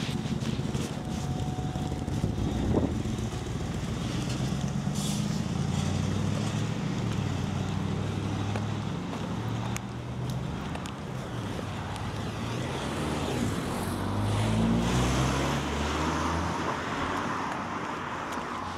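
City street traffic, with a vehicle engine running close by and its pitch rising and falling as traffic moves.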